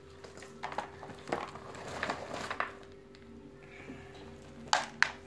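Dry pieces of orchid bark rustling and clattering against a plastic bowl as a gloved hand scoops through them, with a few sharper knocks near the end.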